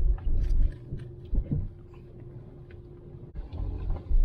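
Irregular low thumps and rumble as a car jolts over a rough, potholed road and shakes the camera, over a faint steady hum. The heaviest jolts come at the start, about a second and a half in, and near the end.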